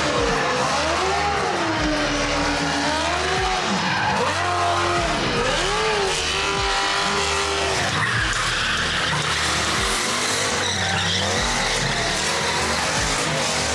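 Drift cars at full lock in a tyre-smoke drift: engines revving up and down over and over as the throttle is worked, with tyres screeching as they slide.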